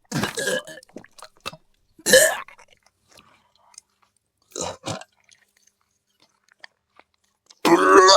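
Sound-designed alien vomiting effect: four short retching heaves about two seconds apart, with faint clicks in the gaps between them.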